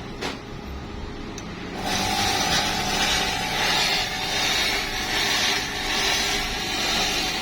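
Mini thermal fogging machine, heated up and ready, starting to blow out disinfectant fog about two seconds in: a loud, steady hiss that swells slightly every second or so, over a low hum.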